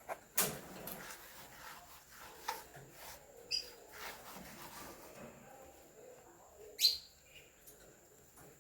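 A bird chirping twice, short high calls, the second a quick rising chirp and the loudest sound, among a few light clicks and knocks of kitchenware.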